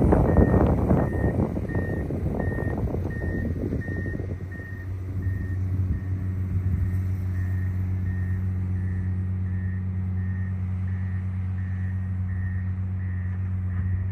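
John Deere 670 GP motor grader's diesel engine running while its reversing alarm beeps about every 0.7 s. For the first four seconds or so a rough rumbling noise covers the engine, then the engine settles into a steady hum.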